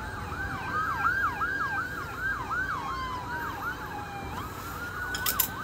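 Police patrol car sirens in fast yelp mode, a rapid up-and-down wail at about three cycles a second, with more than one siren overlapping. One long falling tone crosses them partway through.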